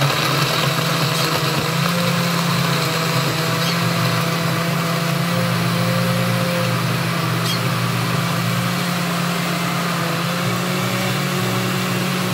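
Countertop blender running steadily at speed with a steady motor hum, blending a banana shake with ice.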